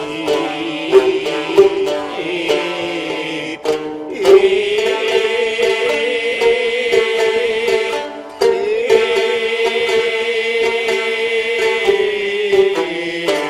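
Gidayū-bushi music of bunraku: a group of chanters singing long notes in unison with a wavering pitch, accompanied by sharply plucked shamisen. The chant breaks off briefly twice and resumes.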